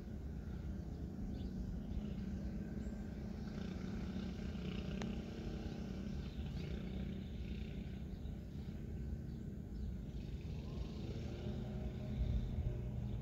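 Steady low background rumble with a faint hum, and one faint click about five seconds in.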